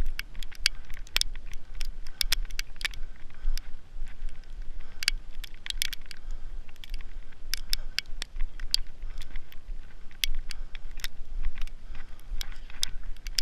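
Snow crunching and crackling in quick, irregular clusters, over a steady low rumble.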